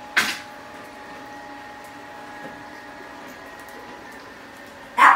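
Robotic vacuum running, a steady whirring hum with a few constant tones. There is a short sharp sound just after the start and a louder one near the end.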